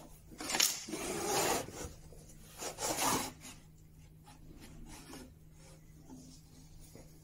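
Wooden panel of a plate camera being slid across and lifted from its wooden frame: wood rubbing on wood in two scraping strokes, a longer one about a second in and a shorter one near three seconds, then only faint handling.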